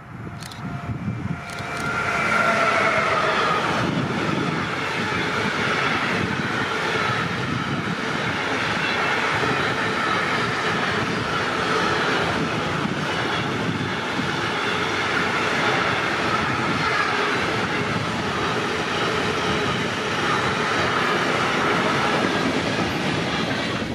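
A train rolling past close by: a steady rumble and rattle of wheels on rails that comes up loud about two seconds in and holds, with a faint high whine over it at first.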